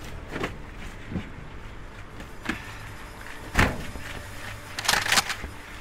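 Clunks of things handled in a car's open boot while a long gun is taken out, the loudest a heavy thud about three and a half seconds in, then a quick pair of sharp clacks about five seconds in as the gun is handled.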